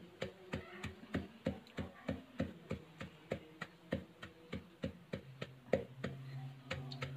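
Wooden pestle pounding dry-roasted chilies and salt in a clay mortar, a steady run of dull knocks about three a second, crushing them into chili flakes.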